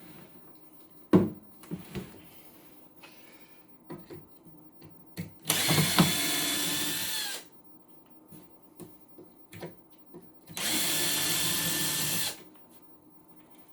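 An electric drill runs in two bursts of about two seconds each, its pitch falling as each run winds down. A sharp knock comes about a second in, with light clicks of handling in between.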